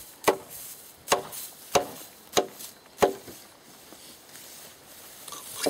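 Hatchet striking an old wooden fence rail, five sharp chopping blows about two-thirds of a second apart, which then stop about three seconds in.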